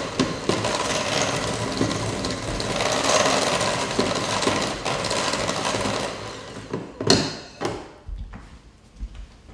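Electric hand mixer running, its beaters churning butter and sugar in a glass bowl. The mixer stops about seven seconds in, and two sharp knocks follow.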